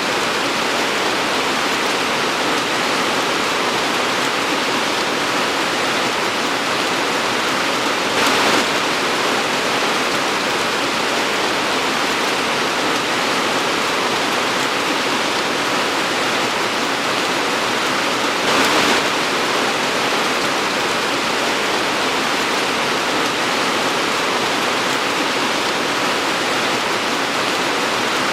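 Torrential rain pouring steadily, a dense, even hiss of water, with two brief louder surges about a third and two thirds of the way through.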